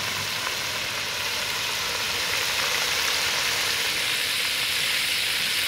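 Hot oil sizzling steadily as food deep-fries in a cast iron Dutch oven.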